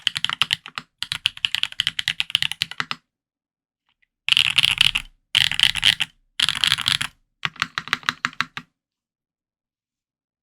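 Custom IRON165 r2 mechanical keyboard with lubed Yok Holy Panda tactile switches, a copper plate and GMK keycaps being typed on. There are two runs of typing, a pause, then four short, fast flurries of keystrokes before the typing stops.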